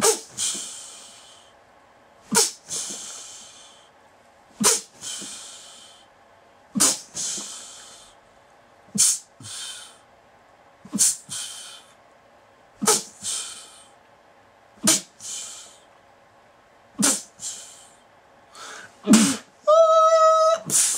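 A person's sharp, forceful vocal outbursts, about one every two seconds, ten in all, each a sudden burst trailing off into a hissing breath; near the end a brief held, higher-pitched cry. These are orgasmic cries and gasps.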